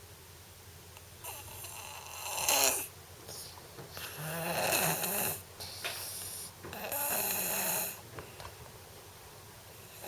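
Sleeping boy snoring: several snoring breaths in a row, each one to one and a half seconds long, with short quiet pauses between.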